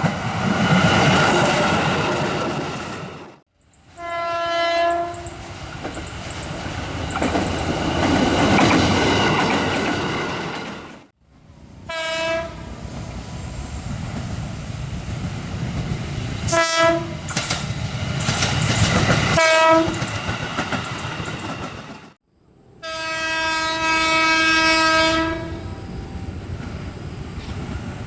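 Commuter electric trains sounding their horn (the S35 signal) as they pass, over the rumble and rail clatter of the passing cars, across several clips joined by cuts. There is a horn blast about four seconds in, then short toots around twelve, seventeen and twenty seconds, and a longer blast of about three seconds near the end. Each is one steady tone.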